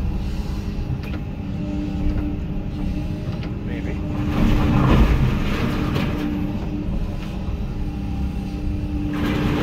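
Hyundai HX220AL excavator's diesel engine running under work, heard from inside the cab, with a steady hum; it swells louder about halfway through.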